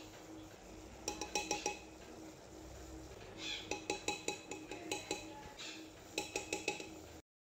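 A steel spoon clinking against an aluminium pressure cooker in three quick runs of taps, shaking spice powder off into the pot. A faint steady hum sits underneath.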